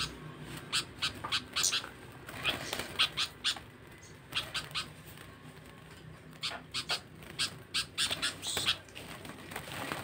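Small wild-caught songbirds crowded in a cage, giving many short, high chirps in irregular clusters.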